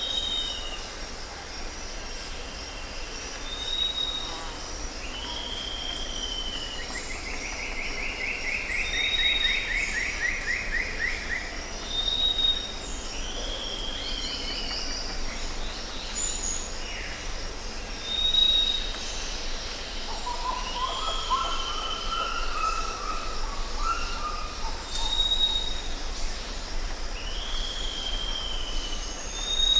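Jungle ambience: several birds calling over a steady, shrill chorus of insects. A short high whistle repeats about every four seconds, among falling calls. A long rapid trill runs for a few seconds about a quarter of the way in, and a lower warbling call comes about two-thirds of the way through.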